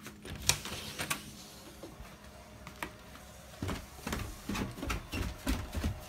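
A door latch clicks twice as the door opens. From a little past halfway, footsteps start going down wooden stairs in a steady rhythm of two to three thuds a second.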